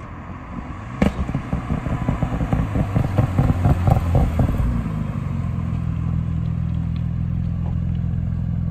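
Audi B5 S4's twin-turbo V6 rolling past slowly, its exhaust crackling and popping irregularly and getting louder until about five seconds in. From then on a car engine idles steadily close by.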